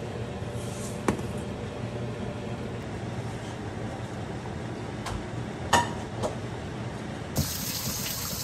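A few light clinks of a utensil against a pot over a steady low hum; one clink about six seconds in rings briefly. About seven seconds in, running water starts, like a kitchen tap.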